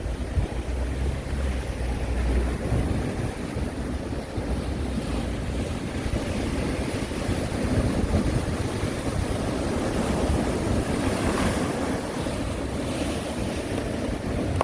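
Sea surf rising and falling as waves break and wash ashore, with a louder, hissing wash of breaking water near the end. Wind buffets the microphone, most strongly in the first few seconds.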